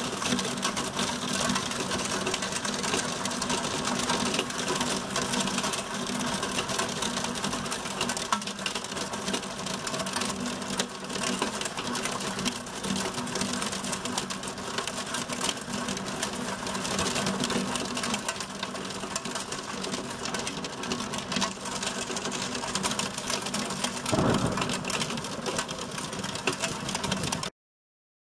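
Heavy wind-driven rain pelting window glass in a severe thunderstorm, heard from behind the glass as a dense, rapid rattle. It cuts off abruptly near the end.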